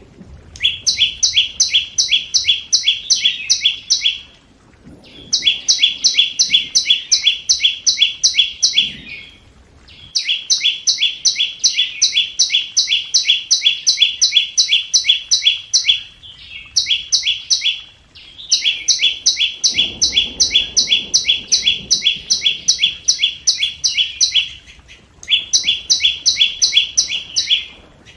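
Flowerpecker calling: a rapid series of sharp, high chip notes, about four a second, in runs of three to six seconds separated by short pauses.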